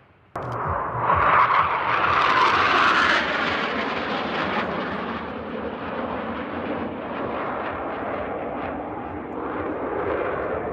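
Military jet flying past: loud jet engine noise that peaks over the first few seconds and then eases off to a lingering rumble.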